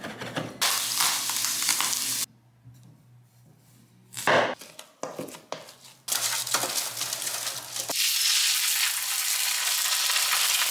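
Kitchen sounds in quick succession: a knife chopping herbs on a wooden cutting board with rapid clicks, then potatoes being mashed in a metal bowl, then a salmon fillet sizzling steadily in an oiled frying pan near the end.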